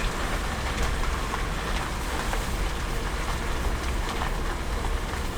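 Steady rain falling on a car, heard from inside the cabin, with scattered ticks of single drops and a low rumble underneath.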